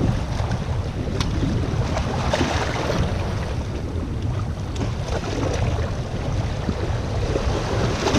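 Wind buffeting the camera microphone with a steady low rumble, over sea waves washing against the rocks of a seawall. A few faint clicks come through.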